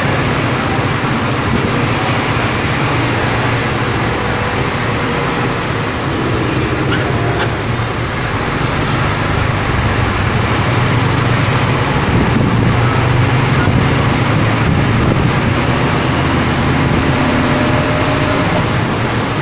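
Scania P310 truck's diesel engine running under way, heard from inside the cab: a steady low drone with road and tyre noise.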